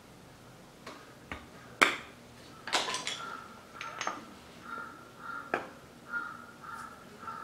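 Metal knocks and clinks from a Yamaha TDR250's two-stroke cylinder being handled on a wooden block while its exhaust power valve is worked out. One sharp knock comes about two seconds in, followed by a run of lighter clinks, with a short high tone repeating behind them.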